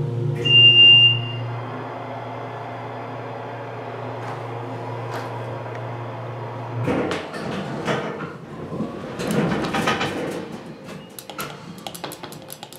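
Hydraulic elevator in service: a single high electronic beep about half a second in over a low, steady hum of the car in motion. The hum cuts off about seven seconds in as the car stops, followed by a few seconds of clattering and sliding as the doors open.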